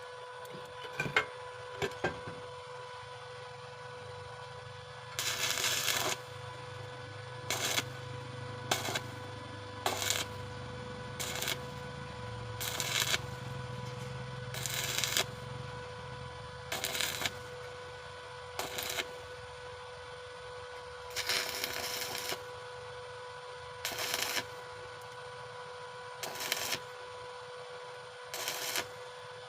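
Stick-welding arc crackling in short bursts, struck and broken again about every one to two seconds: the stop-start stitch technique for welding very thin metal with an oversized 2.6 mm rod without burning through. A steady electrical hum runs underneath.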